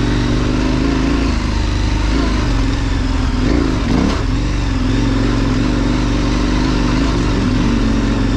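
KTM 1090 Adventure's V-twin engine running as the motorcycle is ridden. Its revs dip and rise once about halfway through.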